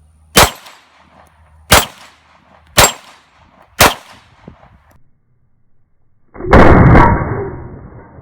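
Four 9mm shots from a Glock 19 pistol fired at an AR500 steel gong, each a sharp crack with a short ring-out, spaced roughly a second apart. About six seconds in comes a single much longer, deeper, muffled blast that fades away over a couple of seconds.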